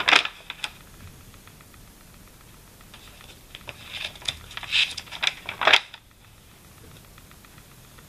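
Paper notebook pages being turned by hand. There is a short crisp rustle at the start, then a longer run of paper crackling and flapping from about three to six seconds in. The loudest rustle comes just before it stops.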